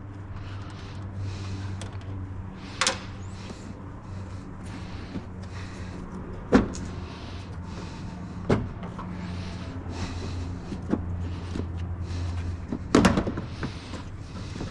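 Scattered sharp clicks and knocks of tools and plastic as a car's headlight assembly is unbolted and worked loose, over a steady low hum that drops away near the end.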